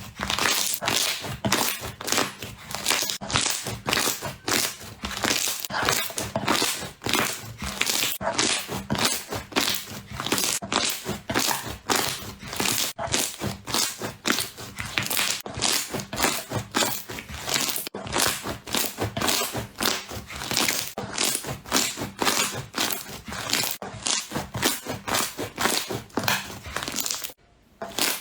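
Slime being squeezed and pressed by hand, giving a dense, continuous crackling and crunching, several pops a second. It drops out briefly about a second before the end.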